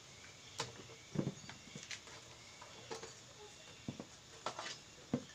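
Irregular clicks and knocks of a spatula against a metal steamer pot as steamed cassava chunks are lifted out and dropped into a plastic bowl, the loudest a dull knock about a second in.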